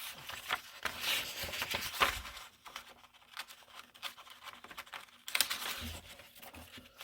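Paper drawing sheets rustling and crinkling as they are handled and turned, with a few light taps.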